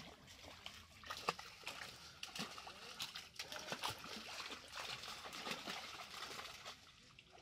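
Pond water splashing and sloshing as men wade and drag a seine net, with fish thrashing at the surface inside the net, a dense run of quick irregular splashes.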